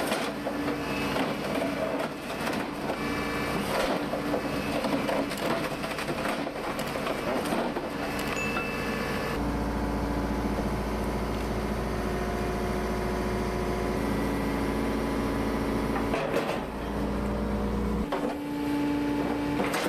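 Heavy machinery working through timber: wood cracking and crushing with many sharp snaps, then from about nine seconds in a steady, deep engine drone.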